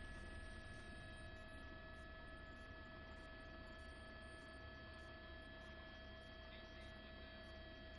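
Near silence: a faint steady electrical hum with a few thin, steady whining tones.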